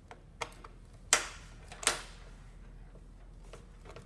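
Sharp plastic clicks and knocks from a hand mixer's plastic housing being pried apart with a tool: three main clicks, the loudest about a second in.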